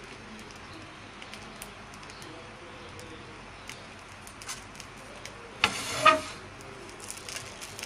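Thin spring-roll sheet batter cooking on an oiled tawa: a faint steady sizzle with light crackles. A brief, louder pitched sound cuts in about two-thirds through.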